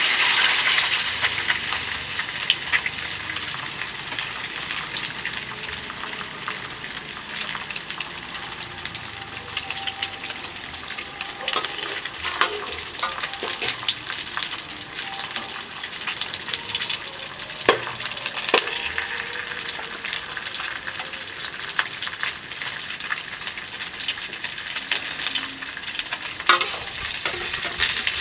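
Egg frying in hot oil in a pan: a dense, steady sizzle and crackle, loudest at the start and easing off over the first few seconds, with scattered sharper clicks and pops throughout.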